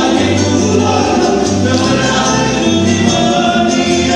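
Music with voices singing together over a steady, repeating bass line.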